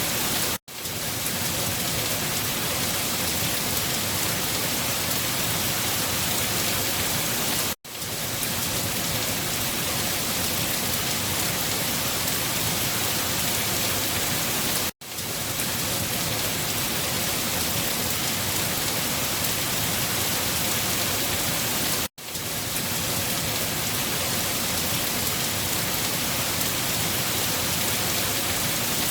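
Steady, dense rain falling, an even hiss with no thunder. Every seven seconds or so it cuts out for a split second and fades back in: the recording is a short loop repeated.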